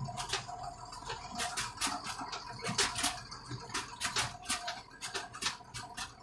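Deutz tractor heard from inside its cab while driving: a steady engine hum and whine with frequent irregular rattles and clicks as it moves down a rough lane.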